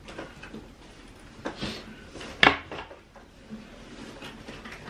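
A few light knocks of small hard objects being handled, with one sharp click, the loudest sound, about halfway through.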